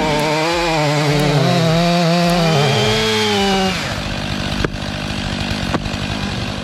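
Chainsaw running at high revs while cutting, its pitch wavering under load. About four seconds in it drops back to a lower, steadier run. Two sharp knocks follow about a second apart.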